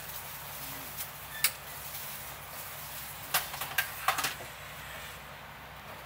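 Kitchen prep work: scattered sharp clicks and clatters of utensils, with a cluster of them about three and a half to four and a half seconds in, over a steady low equipment hum.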